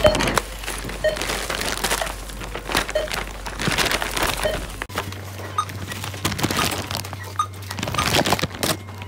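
Rustling and knocking handling noise from a phone held against clothing, with irregular clicks and scrapes of fabric on the microphone.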